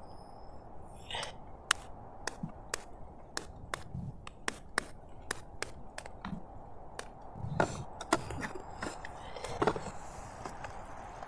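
A series of sharp, irregular knocks and taps, like chopping, about two a second, over a steady background hiss.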